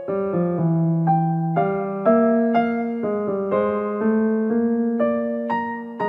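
Background piano music: a gentle melody of struck notes and chords, each note starting crisply and fading away.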